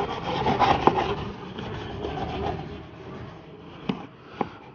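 Toothbrush scrubbing rubbing compound over rusty chrome bumper trim to lift the rust. The scrubbing thins out after about three seconds, with two light clicks near the end.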